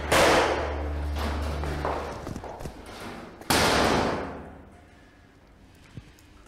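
Two heavy thuds about three and a half seconds apart, each with a long echoing tail, like doors slamming in a bare hall. The first comes over the end of a held low music chord.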